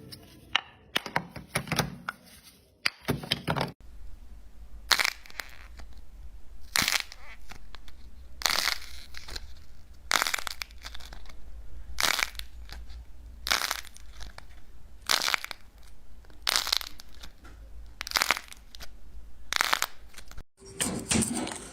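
Crunchy kinetic sand being sliced again and again, each cut a crisp crackling crunch. After a few quick crunches at the start, the cuts settle into a steady pace of about one every second and a half.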